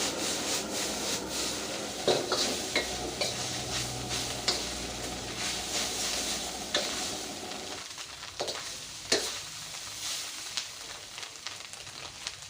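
Mee goreng noodles frying and sizzling while being stirred, with sharp clicks of a utensil against the pan. The sizzle grows quieter after about eight seconds.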